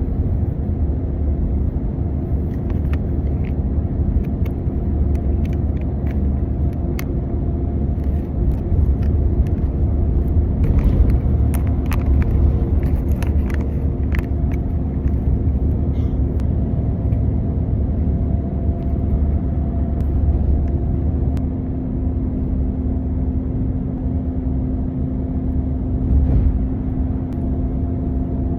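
Inside a moving bus: a steady low rumble of engine and road noise with a constant hum. Scattered light clicks and rustles sound over it, mostly in the first half.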